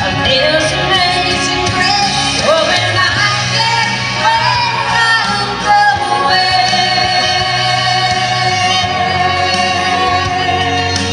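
Female lead vocal singing a country-gospel song over a band with guitar. The voice moves through bending runs, then holds one long note from about six seconds in to the end.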